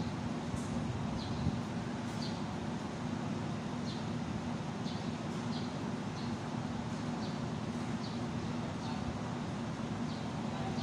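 Small birds chirping: short high falling chirps repeating irregularly about every half second to a second, over a steady low hum.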